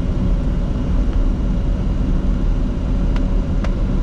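Steady cockpit rumble of a Bombardier Challenger 604 on final approach: airflow over the airframe with the landing gear down and flaps at 45, mixed with its twin turbofan engines. Two faint clicks a half-second apart about three seconds in.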